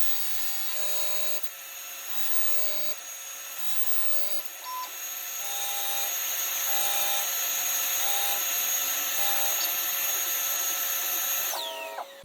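Meiwha CNC tool grinder grinding a 10 mm end mill, its sound sped up five times: a steady hissing grind with high whining tones and short repeating tones. It grows louder about halfway through, then the whine falls in pitch and cuts off near the end.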